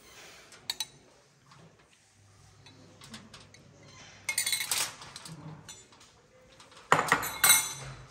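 A spoon clinking twice against a glass bowl just under a second in, then aluminium foil crinkling in two longer bursts as a fish is handled on it, the louder one near the end.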